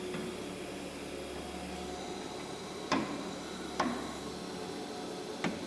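Three short, sharp knocks of tool holders being set into a CNC router, a second or so apart, over the steady hum of the machine.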